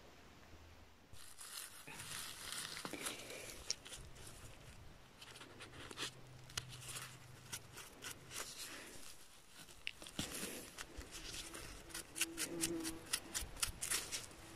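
Faint rustling and scratching as chanterelle mushrooms are handled and brushed clean with a mushroom knife's bristle brush, with quick, dense scratchy strokes in the last few seconds.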